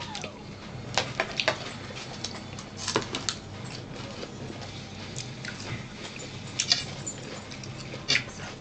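Eating sounds at a table: scattered short clicks of a spoon against a plastic bowl and chewing noises, over a steady low hum.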